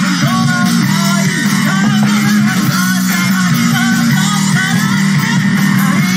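Live rock band playing, with the electric bass guitar prominent over drums.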